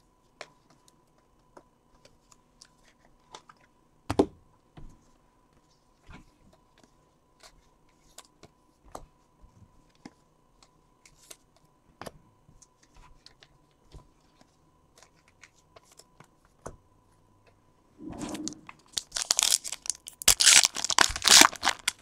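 Scattered faint clicks, then near the end a foil trading-card pack crinkling loudly as it is torn open.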